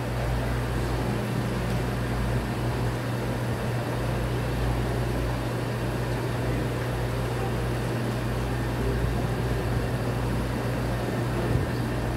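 Steady low hum over a constant even background noise, with no clear events.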